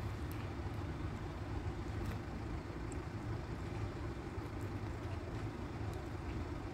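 A steady low rumble of outdoor background noise, with a few faint, scattered clicks of a cat chewing dry kibble from a steel bowl.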